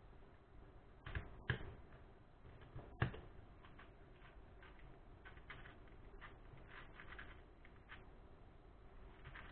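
YuSu 4x4 V2 magnetic speedcube being turned quickly in the hands: a run of quick plastic clicks and clacks as the layers snap round, with a few sharper clacks in the first three seconds.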